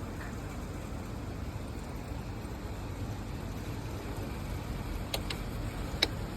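Steady rain, a continuous even hiss with a low rumble underneath, broken by a couple of sharp clicks near the end.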